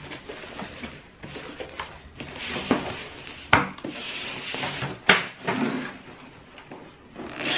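Cardboard boxes being handled on a table: cardboard scraping and sliding, with two sharp knocks a second and a half apart past the middle.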